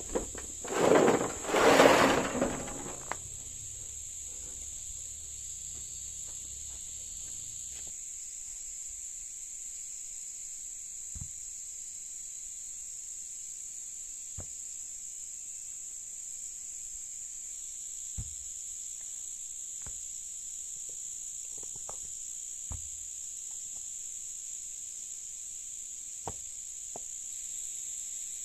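A wheelbarrow load of rocks tipped out onto the dirt, rattling and tumbling loudly in two pushes about one and two seconds in. Then faint single knocks of stones being set down by hand, over a steady high-pitched insect drone.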